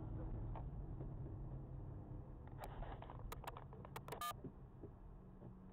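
Car cabin driving noise, a steady low rumble of engine and tyres, with a quick run of sharp clicks and ticks from about two and a half to four and a half seconds in.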